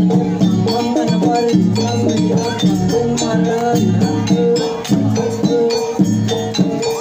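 Jaranan gamelan ensemble playing a steady rhythmic piece, pitched notes stepping along over regular percussion strokes.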